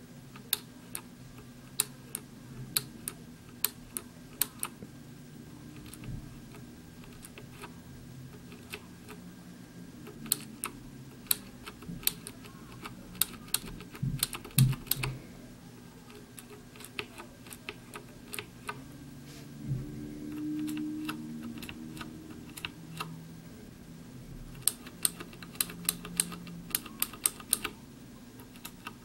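Mechanical keyboard with clicky Cherry MX Green switches, keys pressed one at a time in irregular bursts with a quicker run near the end, each giving a sharp click. Some switches are defective and fail to give their click.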